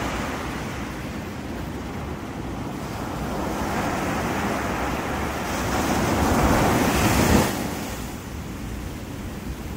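Ocean surf washing up a sandy beach: a steady rush of waves that builds to its loudest about seven seconds in, then falls away suddenly.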